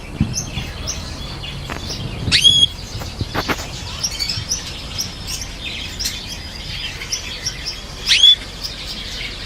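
Small cage birds chirping, many short high calls overlapping, with two louder calls standing out about two seconds in and near the end.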